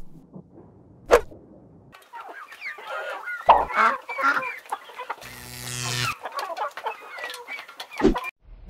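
Chicken clucking: a few seconds of short, choppy calls. There is a short thump about a second in and another near the end.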